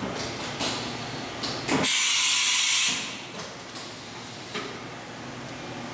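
Automatic tool changer of a Matsuura MC-600V vertical machining center swapping a tool: a series of mechanical clunks and clicks, with a loud hiss of compressed air lasting about a second in the middle of the change.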